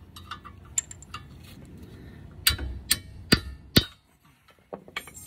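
A hammer strikes a 17 mm wrench on a front caliper bracket bolt four times, about two blows a second, with sharp metal-on-metal clanks. The blows break the tight bolt loose. Lighter clinks of the tools come before the blows.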